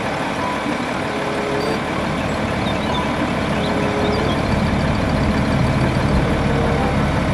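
Heavy Volvo tipper truck's diesel engine running steadily while the hydraulic ram raises the dump body.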